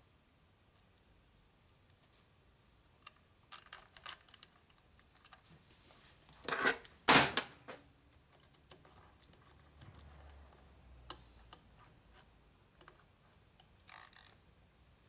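Small metal clinks and ticks of steel oil pump bolts and thin AN washers being handled and fitted, with a louder metallic clatter about seven seconds in.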